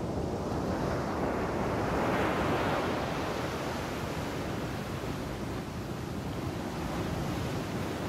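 Sea surf washing and breaking over a rocky shore: a steady rushing that swells about two seconds in, with wind buffeting the microphone.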